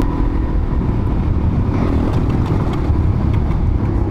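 Suzuki DR-Z400S's single-cylinder four-stroke engine running as the bike is ridden along a dirt trail, a steady low rumble with a few light clicks.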